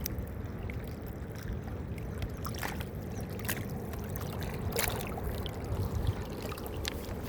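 Water trickling and lapping, with a few short splashes or drips standing out over a steady low rumble.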